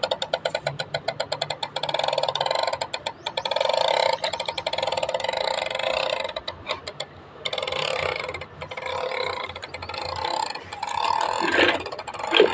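Plastic pull-along dog toy dragged on its string across rough concrete, its wheels and leg mechanism clattering in rapid clicks, with a couple of short pauses where the pulling stops.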